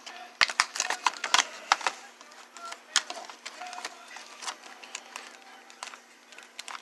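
Clear plastic blister packaging crackling and clicking as it is handled and an action figure is worked out of its tray: a rapid run of sharp crackles in the first two seconds, then sparser clicks.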